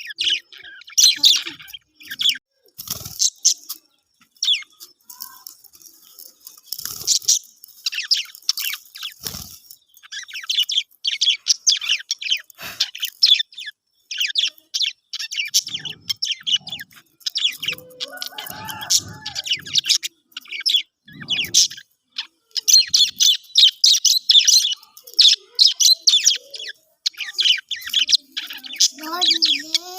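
Budgerigars chattering and warbling in rapid bursts of high chirps, with pauses between bursts and a few short knocks.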